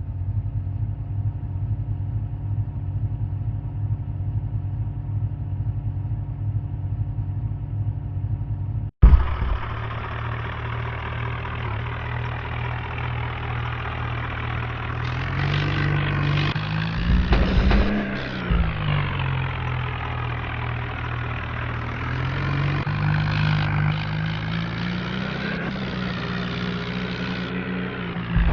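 Motor vehicle engine running at a steady pitch. After a sudden cut about a third of the way in, it runs with its pitch rising and falling as it is driven, with a few heavy knocks near the middle.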